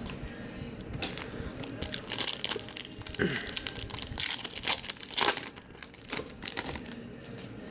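A trading-card pack wrapper being crinkled and torn open: an irregular run of crackles and rustles.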